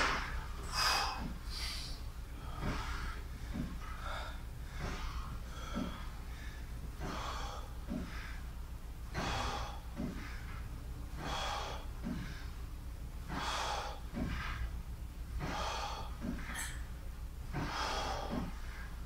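A man breathing hard during a set of leg extensions, with a sharp, forceful breath about every two seconds, in time with the reps. A steady low hum runs underneath.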